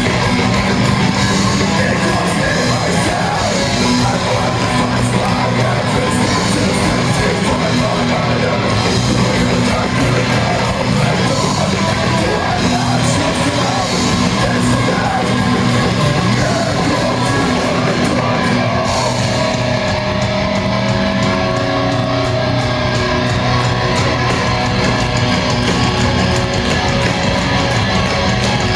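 Live metalcore band playing loud: distorted electric guitars, bass and drum kit, with a vocalist singing and yelling. About two-thirds of the way through the cymbals thin out and a held note rings over the band.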